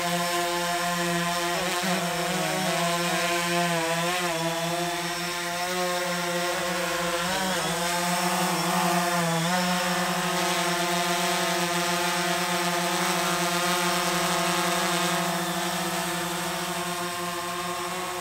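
DJI Phantom 3 Standard quadcopter hovering, its four motors and propellers giving a steady buzzing whine. The pitch wavers as the drone adjusts its position between about two and ten seconds in, then holds steady.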